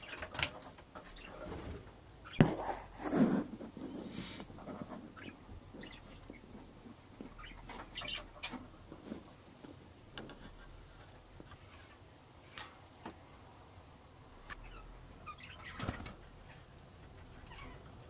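Budgerigars fluttering their wings, with scattered rustles and clicks; the loudest bursts come about two and a half and three seconds in.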